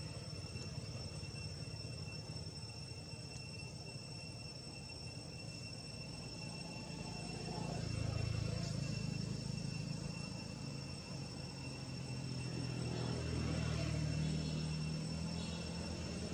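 Insects droning on a steady high-pitched note, with a low engine rumble that swells about halfway through and again near the end.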